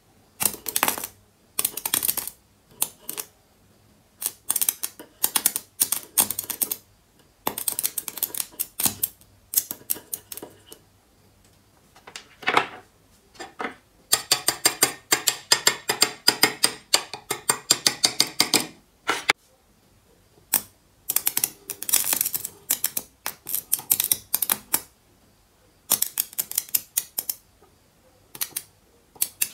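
Stick-welding arc from a homemade ballast-based welder, crackling and spitting in repeated short bursts as the electrode is struck and the arc breaks off. There is one longer steady run of crackle lasting about five seconds in the middle.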